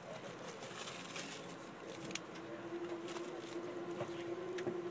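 Amtrak passenger train rolling slowly to a stop, heard from inside the coach: low running noise with a few sharp clicks, and a steady brake squeal that comes in about two seconds in and grows louder near the end.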